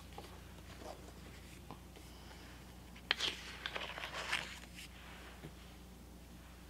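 Paper pages of a spiral-bound Erin Condren Life Planner being turned by hand: soft rustling, with a few crisp page flaps and rustles about three to four and a half seconds in.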